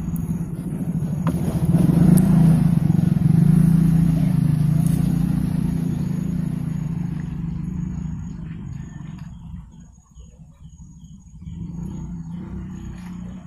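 A motor engine passing by: a steady low hum that grows louder over the first few seconds, then fades away about ten seconds in, with another engine rising again near the end.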